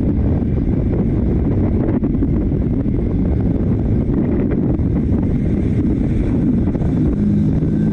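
Wind buffeting a motorcycle rider's camera microphone at speed, a loud, steady rush of wind and road noise. A steady low hum joins near the end.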